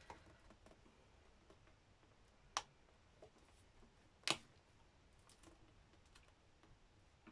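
Two short, sharp snips about a second and a half apart: scissors cutting the binding strings of a tightly bound book, against near silence.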